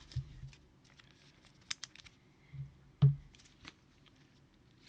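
Trading cards being handled and flipped through by hand, with a few light clicks and taps and one louder knock about three seconds in.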